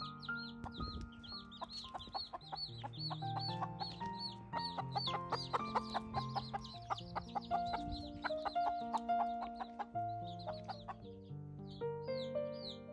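Chicks peeping repeatedly, short high chirps about three a second that pause briefly near the end, over background music of held notes.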